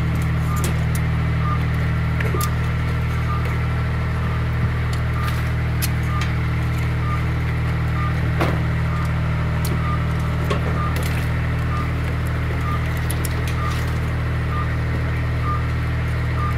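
A machine's engine running steadily with a low drone, with a faint high beep repeating about once a second. Small metallic clicks and taps from pipe fittings being handled come and go over it.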